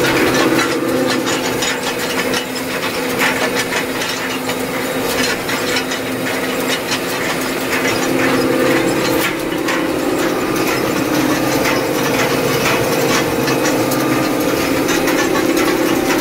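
Tractor heard from inside its cab: a steady engine drone under constant rattling and clicking.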